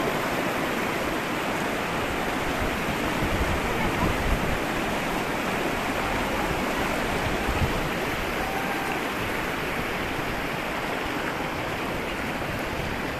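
Fast mountain river rushing over boulders in whitewater rapids, a steady rushing sound.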